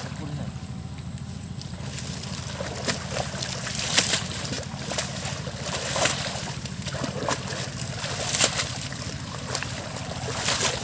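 Pond water sloshing and splashing as two people wade and pull at a thick clump of water hyacinth, with irregular sharper splashes, the loudest about four seconds in and again near eight and a half seconds, over a steady low rumble.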